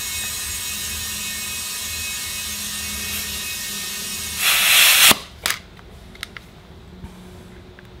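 Compressed air hissing steadily, with a faint whistle, through an air chuck into a golf cart tire's short valve stem for about four seconds. Then a brief louder hiss and a sharp click as the chuck comes off, followed by a few light clicks.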